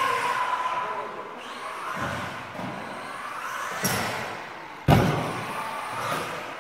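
Small radio-controlled off-road car's electric motor whining, its pitch rising and falling with the throttle. Two sharp knocks cut across it, the louder about five seconds in.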